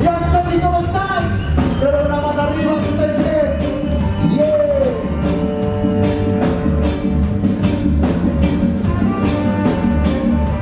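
Live reggae band playing: bass and drums in a steady pulse, with long held melody notes over them that slide down at the end of a phrase.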